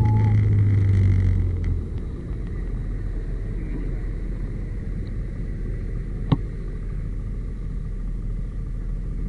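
Yamaha SMAX scooter's single-cylinder engine winding down as the scooter slows, then settling to a steady idle about two seconds in; the abnormal humming noise is absent at idle. One sharp click about six seconds in.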